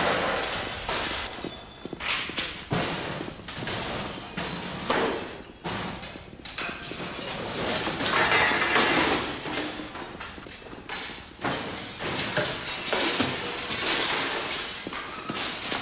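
A run of crashes, thuds and breaking glass as men with clubs smash hospital furnishings, under heavy footsteps.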